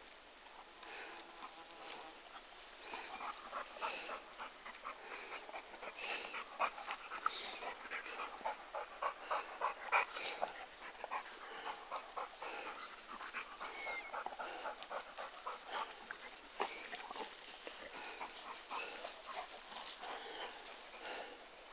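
Dogs panting, with a rapid, irregular patter of short clicks and scuffles throughout.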